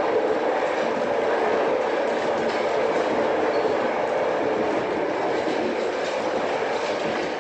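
Steady in-flight airliner engine drone used as a stage sound effect, with no breaks, beginning to fade near the end.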